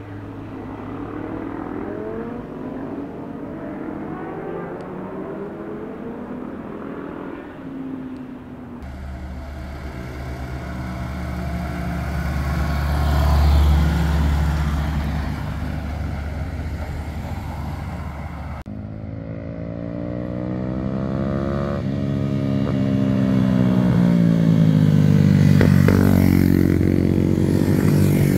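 Road vehicles passing at a mountain bend. A vehicle towing a boat trailer goes by with a heavy low rumble that peaks and fades. Then motorcycles ride through the curve, their engine notes rising and falling in pitch as they accelerate and pass, loudest near the end.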